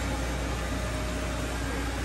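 Doosan Puma TT1800SY CNC turning center powered up and idling, a steady machine hum with fan-like noise and a faint constant tone.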